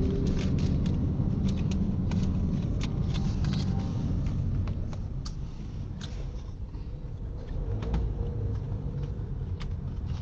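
Road noise inside a moving car's cabin: a steady low rumble of engine and tyres, with scattered light clicks.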